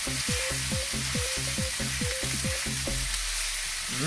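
Sliced mushrooms and garlic sizzling in olive oil in an enamelled cast-iron skillet, stirred with a silicone spatula. A regular low pulse of about five a second runs underneath and drops out briefly near the end.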